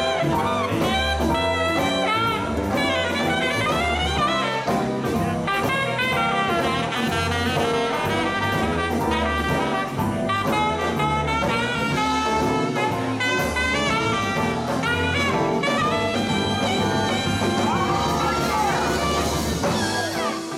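Live blues band playing an instrumental passage: saxophone lines over electric guitar, keyboard and drums, with a steady pulsing bass line.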